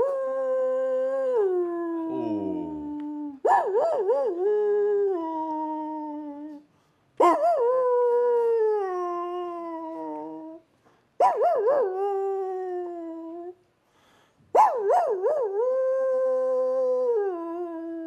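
A man imitating with his mouth a sad, lonely dog howling far off: five long howls, each about three seconds, opening with a quick wavering warble and then sliding down in pitch.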